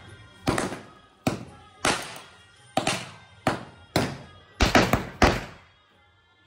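Music with a run of about ten sharp hits at uneven spacing, each trailing off. The hits stop about a second before the end.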